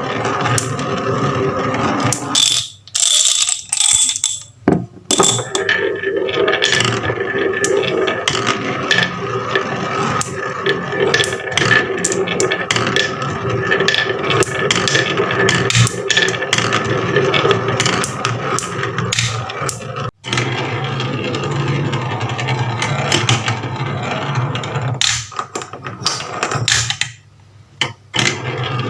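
Marbles rolling and clicking down a marble run, many small clacks over a steady mechanical whir, with a few short breaks where it nearly stops.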